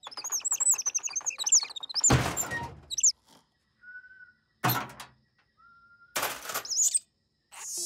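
Cartoon sound effects for a small hermit-crab character: rapid, high squeaky chirps that glide up and down, two thuds about two and five seconds in, and a few more chirps and a short whoosh near the end.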